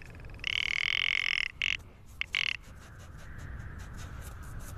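Rock ptarmigan calling: a brief note, then one long call of about a second, followed by three short calls.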